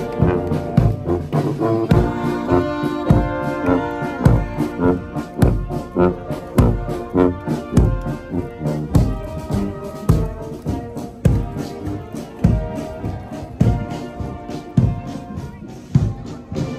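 Marching wind band with sousaphones, saxophones, trumpets and flutes playing a march, brass to the fore, over a regular drum beat; it grows a little quieter toward the end as the band moves on.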